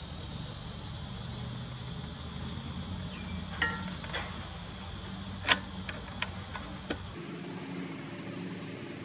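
A handful of light metallic clicks and clinks from pliers and a metal hydraulic swivel fitting being worked into place on a Case 580B backhoe's boom cylinder, the loudest a sharp click about five and a half seconds in. Underneath is a steady high hiss that drops abruptly about seven seconds in.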